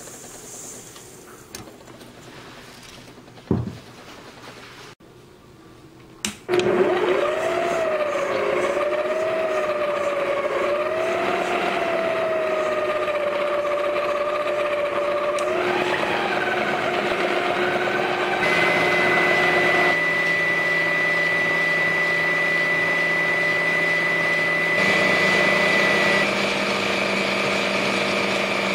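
Electric stand mixer beating butter and sugar. After a quieter stretch with a single knock, the motor starts about six seconds in and runs steadily with a whine. Its pitch rises around the middle as the mixer is turned up from low speed to faster.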